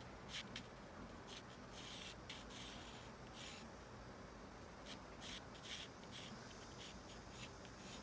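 Pencil lead scratching across paper in a series of faint short strokes, some longer than others, as straight sail lines are sketched.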